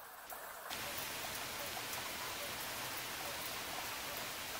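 Light rain falling, a steady even hiss of drops on the surroundings.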